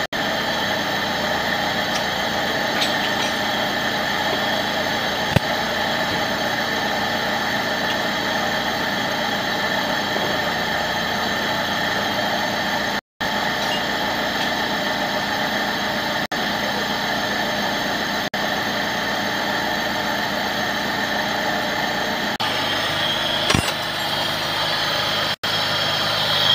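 Nissan GA16 four-cylinder engine idling steadily. It runs quietly on a freshly replaced timing chain, without the scraping-metal noise it made before.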